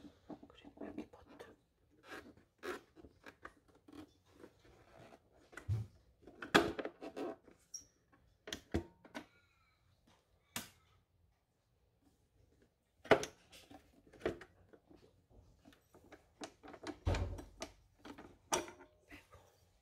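Scattered clicks and knocks from handling a stand mixer: the metal dough hook and the tilt-head being fitted, lowered and raised over the stainless steel bowl, with a few low thumps and two louder knocks, one a third and one two-thirds of the way through. The motor is not running.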